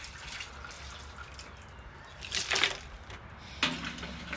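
Seafood boil broth sloshing and dripping in a large stock pot as pieces are lifted out, with two short splashes, about two and a half and three and a half seconds in.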